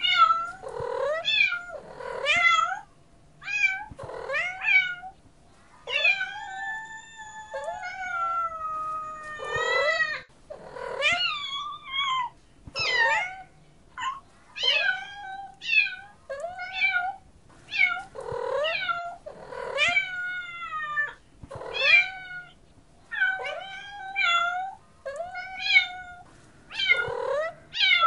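Domestic cats meowing over and over, mostly short calls one after another, with one long drawn-out meow about six seconds in.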